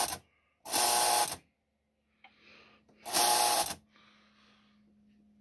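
Lionel 3672 Bosco milk car's electric mechanism buzzing in short bursts as the uncoupling-track controller is pressed, working the milkman to push milk cans out onto the platform. Two buzzes come about two seconds apart, after the tail of a third at the very start, with a faint steady hum between them.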